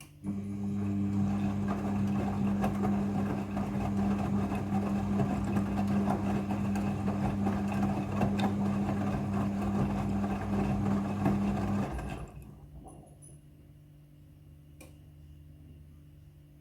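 Midea front-loading washing machine running during its rinse cycle: a steady motor hum with water noise that starts suddenly and stops about twelve seconds in, fading away over about a second.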